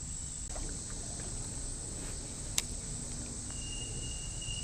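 Insects droning steadily at a high pitch over a low, even background hush. A single sharp click comes about halfway through, and a faint thin whistle joins near the end.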